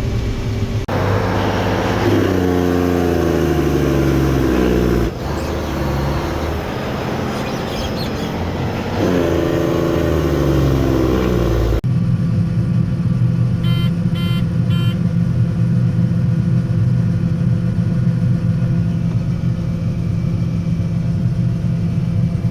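Farm machinery engines: for about the first half, engines speeding up and slowing down across several abrupt cuts. Then a steady engine drone, with a few short high beeps a little after halfway.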